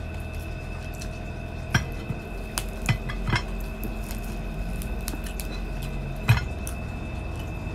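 Crisp skin of a deep-fried pork knuckle (crispy pata) being broken apart by hand: a few sharp cracks and clicks, several close together about two to three seconds in and the loudest about six seconds in, over a steady low hum.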